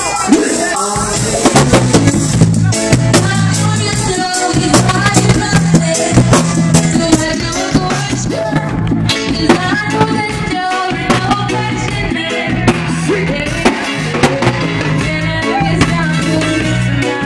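Live band playing a song: a drum kit, a repeating bass line and singing.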